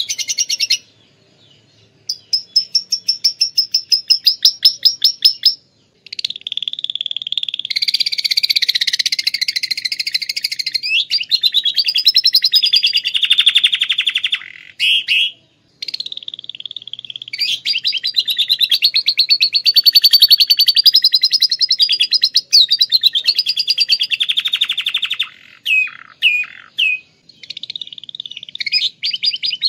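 Domestic canary singing long, rapid trills and repeated-note phrases broken by short pauses, its song filled with lovebird phrases it has learned.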